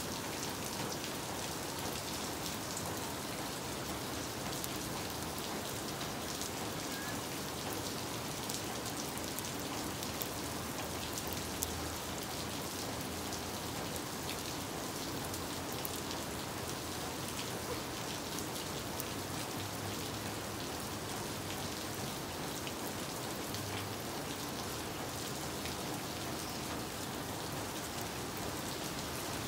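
Steady rain falling on tiled roofs, palm fronds and a wet paved street: an even hiss with a few sharper drop ticks.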